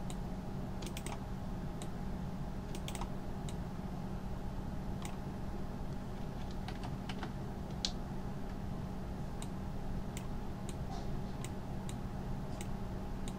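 Irregular clicks of a computer mouse and keyboard, spaced unevenly a second or so apart, over a steady low electrical hum from the recording setup.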